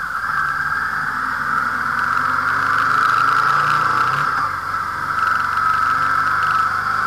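Motorcycle on the move: a steady rushing hiss of wind and road noise, with the engine running underneath at an even pace.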